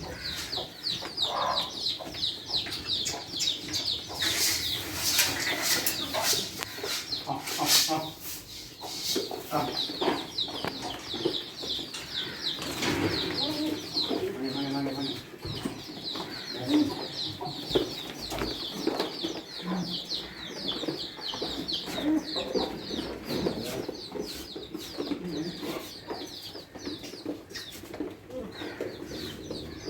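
Chickens clucking among constant rapid, high-pitched chirping from birds. A few sharp knocks or clatters come several seconds in.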